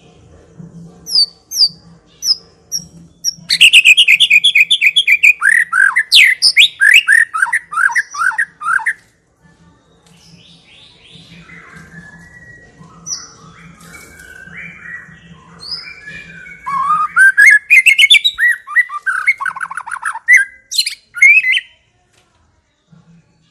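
White-rumped shama (murai batu) singing: short whistled chirps, then loud bouts of rapid, repeated falling notes and varied whistled phrases, with a quieter stretch of softer song between the two bouts.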